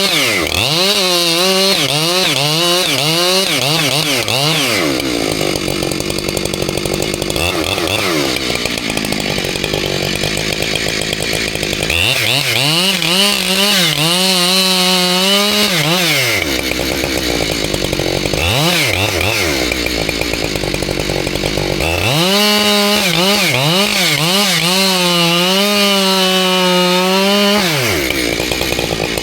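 Husqvarna 592 XP two-stroke chainsaw cutting through a large poplar trunk. Its engine pitch repeatedly dips and recovers as the chain works the wood, in three long stretches at the start, around the middle and near the end, with higher, rougher running between them.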